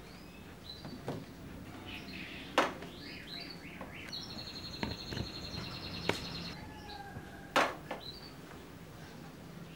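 Birds chirping in short, scattered calls, with a rapid pulsing trill for about two seconds in the middle. A few sharp knocks cut through, the loudest two about two and a half seconds in and near the end.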